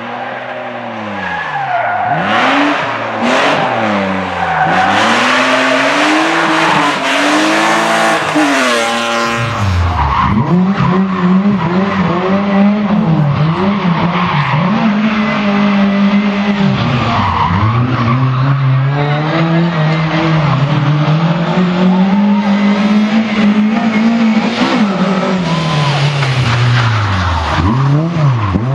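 Rally car engines at full effort, the revs climbing and dropping again and again through gear changes and braking. About nine and a half seconds in, the sound changes abruptly to another run.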